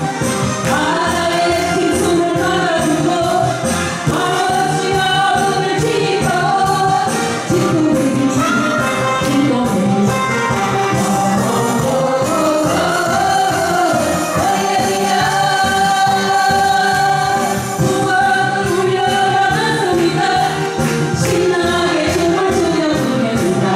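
Two women singing a Korean trot song into microphones over a musical accompaniment with a steady beat.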